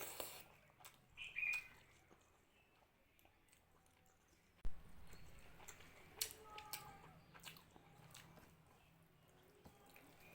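Faint close-up eating sounds of rice and mutton curry: chewing and wet mouth clicks, with a sharp knock about halfway through.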